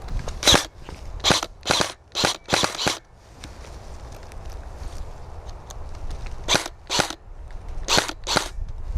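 Airsoft guns firing single shots: about ten sharp pops, six in quick succession in the first three seconds, then four more in two pairs near the end.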